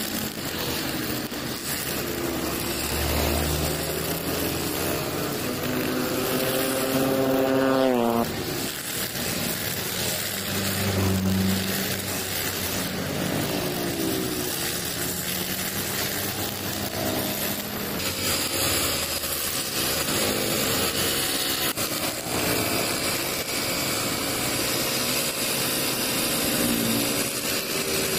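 Petrol brush cutter with a nylon trimmer-line head running and cutting short grass, its engine revving up and easing off as it works. The engine pitch climbs steeply and then drops sharply about eight seconds in.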